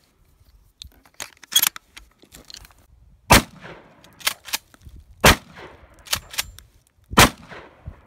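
Pump-action shotgun firing three loud shots about two seconds apart, with the clack of the pump being worked between them. Before the first shot, a few light clicks of shells being pushed into the magazine.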